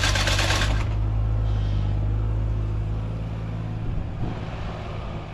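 Mini excavator's diesel engine running steadily while the hydraulic finger-bar mower's reciprocating knife clatters rapidly for about the first second. The engine then carries on alone and its sound gradually falls away.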